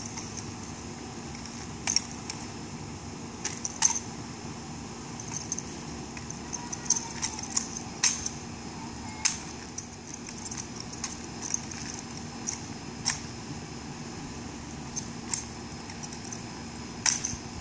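Scattered sharp slaps, clicks and light metallic jingles from a bayonet-fixed M1903A3 drill rifle being spun, tossed and caught by hand, at irregular intervals over a steady low hum.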